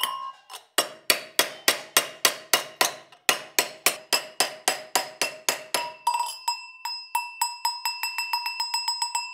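A hand hammer strikes a sheet-metal Sardinian cowbell (sonazzo) held over an anvil stake, about three to four blows a second, and each blow leaves the bell ringing with a clear pitch. From about six seconds in the blows become lighter and quicker, and the bell's tone rings on between them.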